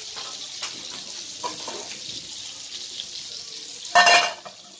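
Faint steady sizzle from a pot of biryani on a hot pan. About four seconds in, a metal lid is set down on the pot with a loud clank that rings briefly.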